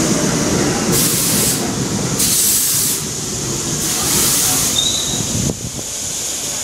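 R68-family subway train rolling into the station: a loud rumble of wheels on rail with three bursts of high hiss and a brief high squeal about five seconds in. The rumble eases near the end as the train slows to a stop.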